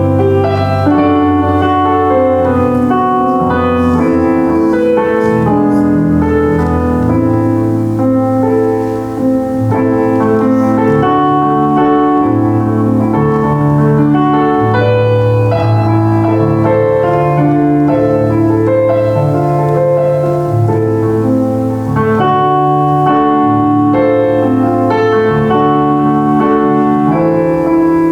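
Solo piano playing a hymn: steady chords over a moving bass line.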